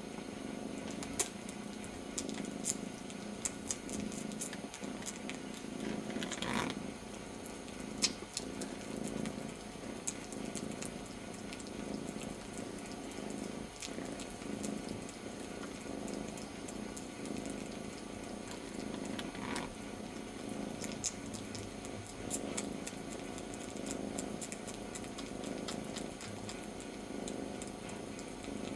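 Young kitten purring steadily while licking and suckling on its littermate's ear, comfort-suckling in place of its mother, with scattered small clicks throughout.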